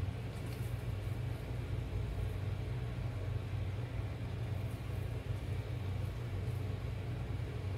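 A steady low background hum, with a few faint soft taps.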